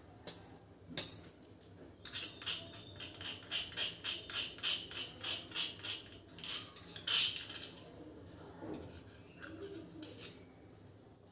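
Cardamom pods being crushed with a pestle in a small hand mortar: two sharp knocks, then quick, even pounding taps at about three a second for some six seconds, and a few more taps near the end.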